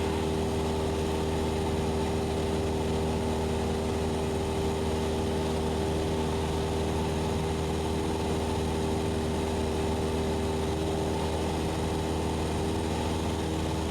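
Cessna 172SP's four-cylinder Lycoming engine and propeller in steady cruise, heard in the cockpit as a constant, unchanging drone.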